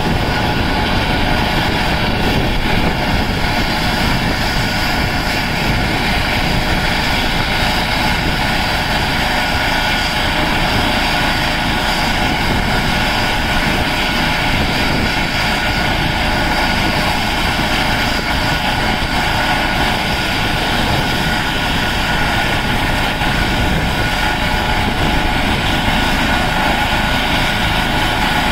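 Eurocopter EC135 twin-turbine helicopter idling on the ground with its main rotor and fenestron tail rotor turning. Its turbines make a steady, unchanging whine over a rotor rumble.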